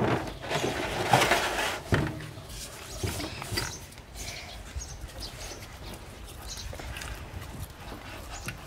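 Short grunting sounds with a few sharp knocks over the first two seconds. After that comes softer rubbing as a hand mixes chopped ingredients in a wooden mortar.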